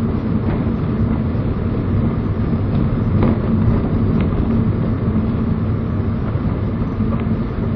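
Toyota 86's flat-four engine and tyre rumble heard inside the cabin through a dashcam microphone, running steadily, with a few faint clicks.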